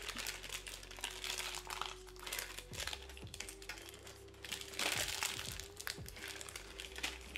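Crinkling of a clear plastic bag of dry pasta noodles, handled and pulled at while being opened, in a quick irregular crackle.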